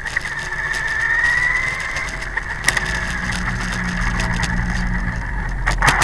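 High-pitched whine of a radio-controlled model's motor running steadily at speed, with scattered clicks. Near the end it dips suddenly, then the pitch climbs again as the throttle comes back up.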